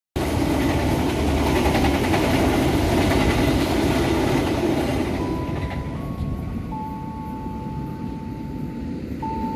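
Passenger train coaches passing on the track with a loud, steady rush of wheel and rail noise that cuts in suddenly and dies away after about five seconds. Near the end a few held tones come in, stepping from one pitch to the next, like a slow tune.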